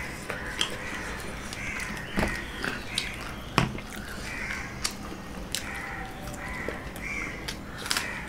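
Crows cawing repeatedly in the background, with a few sharp clinks of a steel tumbler and plates at the table, the loudest about three and a half seconds in.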